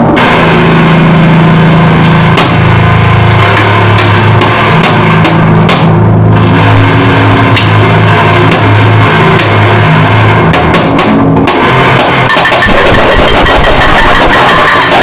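Harsh noise music, loud and saturated throughout: low distorted drones with sharp crackling hits, giving way about twelve seconds in to a denser wall of hissing noise.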